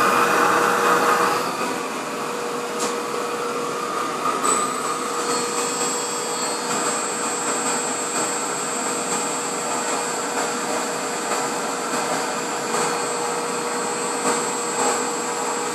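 Festool dust extractor running steadily at full suction, a steady hum with a rushing air noise. About four and a half seconds in a high steady whine joins it, and there is one short click near three seconds.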